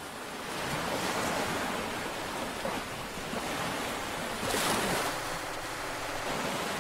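Open water washing and splashing, a steady rushing noise like surf, with a brief louder surge about four and a half seconds in.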